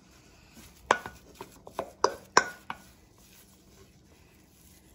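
Wooden spoon knocking and scraping against a stainless steel mixing bowl while thick choux pastry dough is spread around it to cool: about six sharp knocks in quick succession starting about a second in, the louder ones followed by a short metallic ring from the bowl, then only faint scraping.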